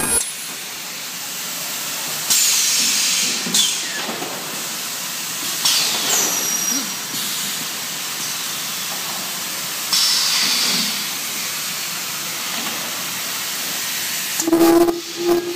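Ultrasonic welding machine for flat-plate solar panels working: a steady hiss with three louder hissing bursts, about every three to four seconds, each carrying a faint falling high squeal. A low steady buzz starts near the end.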